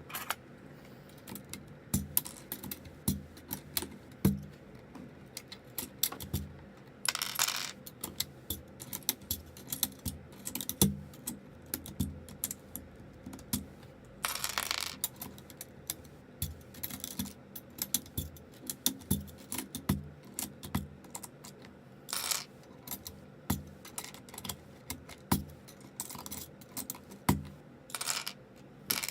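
Plastic keycaps being pulled off a zz96 keyboard and set down: a run of irregular clicks and light clattering taps, with a few short scraping rustles between them.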